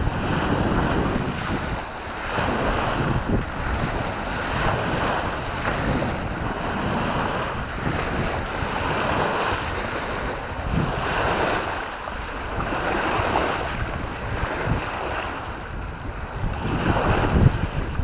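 Choppy, wind-driven reservoir waves washing onto a pebble shore and splashing against a low stone wall, surging about every two seconds, with wind buffeting the microphone.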